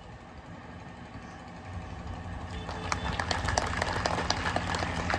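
Audience clapping, starting about three seconds in and growing, over a steady low hum.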